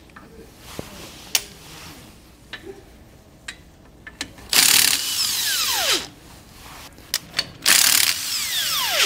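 Power tool with a 9/16 socket spinning nuts off the backing-plate studs of a trailer drum brake, in two runs of about a second and a half each, about halfway through and near the end. Each run ends in a falling whine as the motor winds down. Light clicks and clinks of metal fall in the pauses between.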